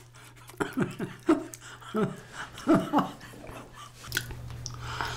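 A woman chewing a soft, sticky ramie rice cake (mosi-tteok) with her mouth, giving several short chuckles that fall in pitch during the first few seconds.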